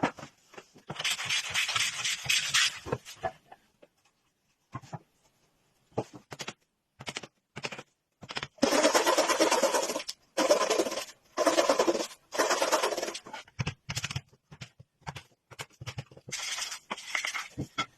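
Rough scraping on wood: a long run of scraping near the start, then a series of four strokes about a second each, with scattered clicks and taps between.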